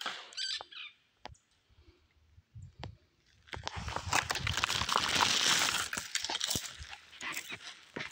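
Dry grass, straw and leaves rustling and crunching as someone moves through them. A short high chirp and a few scattered clicks come first; the crunching starts about three and a half seconds in, is dense and crackly, and eases off a little after seven seconds.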